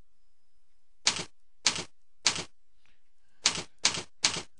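Computer keyboard keys struck one at a time while a password is typed: six loud separate clacks. The first three come about half a second apart, then after a pause three more follow in quicker succession.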